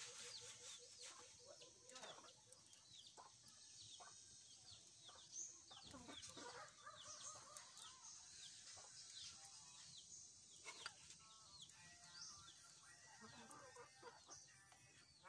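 Faint clucking and peeping of chickens, many short high chirps, with scattered small clicks.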